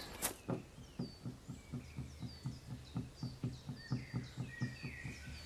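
Birds chirping in short, falling calls over a steady run of soft low thumps, about two or three a second.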